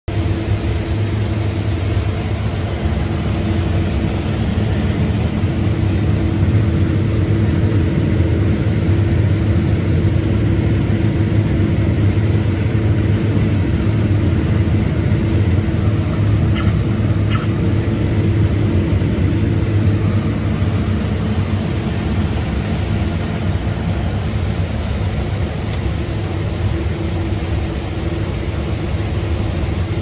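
Combine harvester running while harvesting corn, heard from inside the cab: a steady low drone with a constant hum above it.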